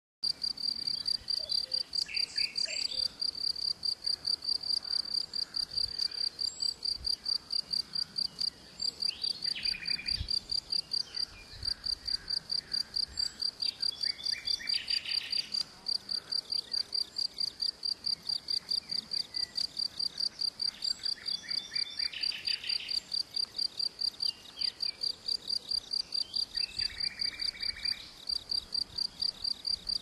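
A cricket chirping without a break in a fast, even rhythm, with songbirds singing short phrases about five times over it.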